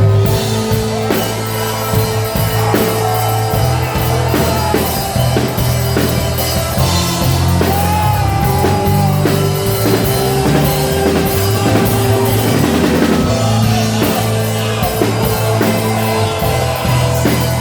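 Live band playing a rock-style worship song: a drum kit keeping a steady beat under bass guitar notes that change about once a second, with held keyboard or guitar tones above.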